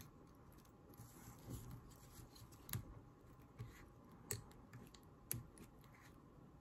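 Near silence with a few faint clicks and light rustling: hands wrapping chenille around a jig hook held in a rotary tying vise.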